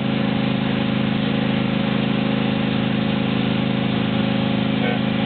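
The train ride's engine running steadily with an even hum that does not change in pitch.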